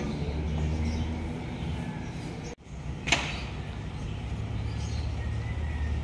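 Low, steady engine hum of running machinery. About halfway through it drops out abruptly, a sharp click follows, and then the hum carries on.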